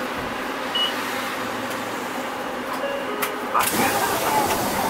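Cabin sound inside a Hino Rainbow non-step diesel city bus: a steady hum of engine and running noise, with a brief click a little past three seconds.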